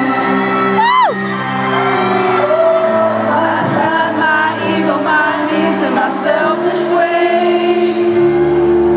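Live piano ballad heard from the audience in an arena: sustained keyboard chords under singing. About a second in, a fan lets out a high scream that slides sharply down in pitch.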